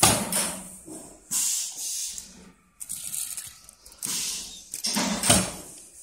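A heap of small metal furniture catches being stirred and scooped by hand, the parts sliding and clattering against each other in several short rustling bursts.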